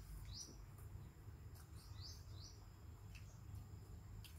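Faint bird chirping: three short high chirps, each falling in pitch, over a low steady hum, with a few soft clicks.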